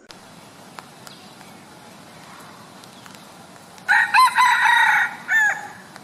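Red junglefowl cock crowing once, starting about four seconds in: a single short, wavering crow of under two seconds. Before it there is only faint background.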